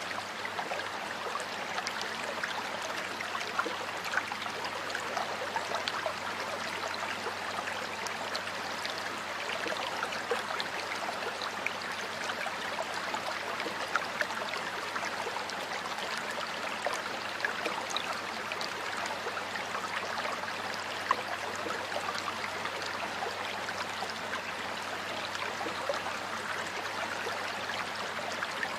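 Stream water flowing steadily over rocks, a continuous rush with many small splashes and gurgles.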